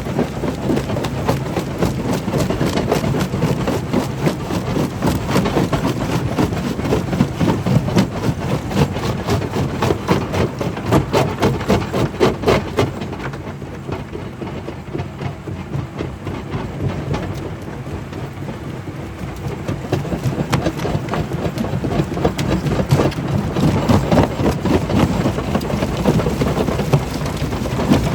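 Stone crusher machine running: a steady low rumble under dense, irregular knocking and rattling of stone being broken. It eases off for several seconds around the middle, then picks up again.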